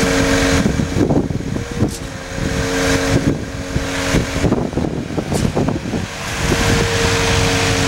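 Concrete pump running as concrete is discharged through its delivery hose onto the slab's reinforcement mesh: a steady engine hum that drops out and returns several times, with rough, irregular noise of concrete gushing out of the hose in between.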